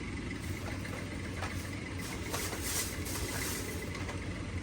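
A steady low rumble, like an idling engine, with a short rustling noise from about two to three and a half seconds in.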